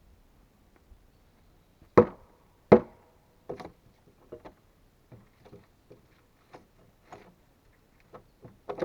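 Two sharp blows on wood about two seconds in, under a second apart, followed by a run of lighter, irregular knocks and taps on wood.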